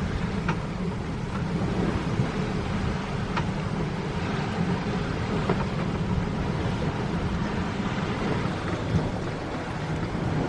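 Wind buffeting the microphone and water rushing along the hull of a sailboat under sail, a steady dense roar with a few brief sharp ticks.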